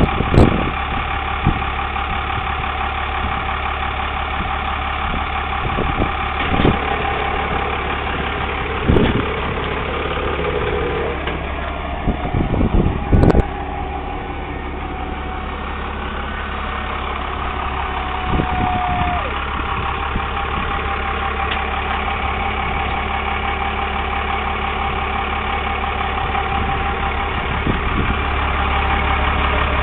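Dodge 3500's Cummins inline-six turbodiesel running steadily at idle, with a few sharp knocks and clicks over the top.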